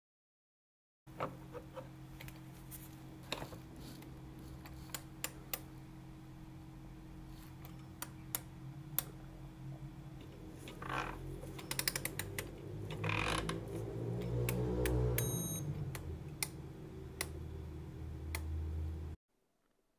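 Light clicks and ticks from a brass fusee clock movement being turned by hand through a digital torque screwdriver on its letdown key to measure the mainspring's torque, with a cluster of clicks about halfway. A steady low hum runs underneath, and a short high beep comes about three-quarters through.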